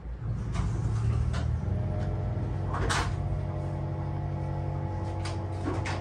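Irregular knocks and clunks of footsteps and handling over a bare wooden subfloor, with a low steady rumble. Steady held tones of background music come in about two seconds in.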